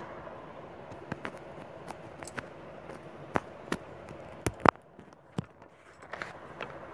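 Handling of a handheld phone or tablet: about half a dozen sharp clicks and taps, the loudest a close pair about four and a half seconds in, over a low steady hiss.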